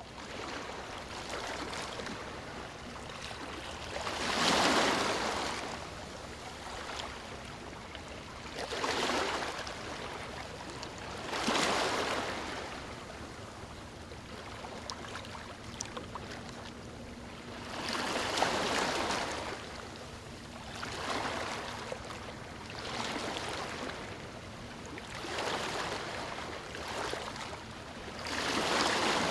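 Ocean waves breaking on a shore, about eight of them, each swelling and fading over a second or two, over a steady hiss of surf between them.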